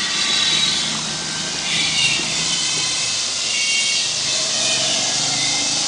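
Steady hiss with a faint high whine that comes and goes, from the walking dinosaur ride's electric drive motor running as it moves.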